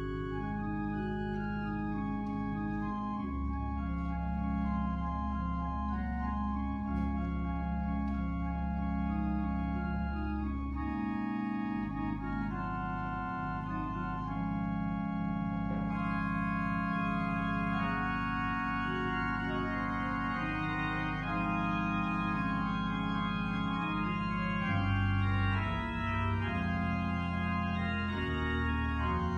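Organ playing slow, sustained chords over long-held low bass notes.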